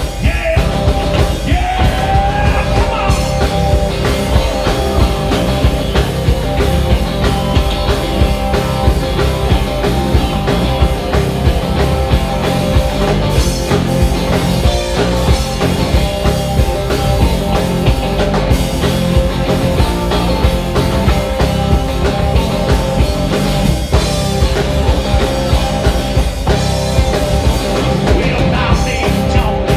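A live country-rock band plays loudly: electric guitar, electric bass and drum kit, with the guitarist singing into the microphone at times.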